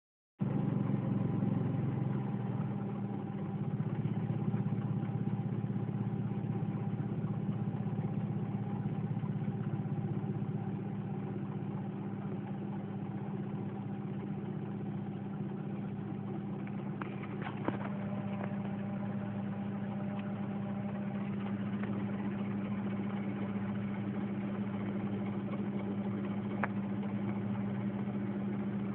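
1996 Mazda Protege's four-cylinder engine idling roughly, a steady hum that is a little louder over the first few seconds, with a few faint clicks later on.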